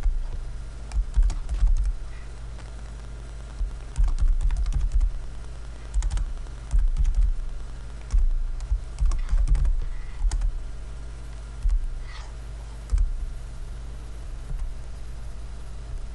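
Typing on a computer keyboard in several short runs of keystrokes with pauses between them. The keystrokes come with dull low thuds, over a steady low hum.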